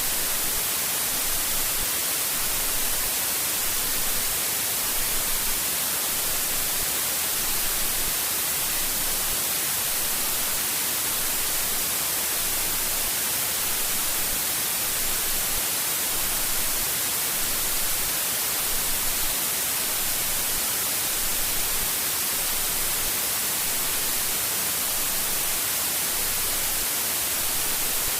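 Steady white-noise static, an unbroken hiss like radio or TV interference, strongest in the treble.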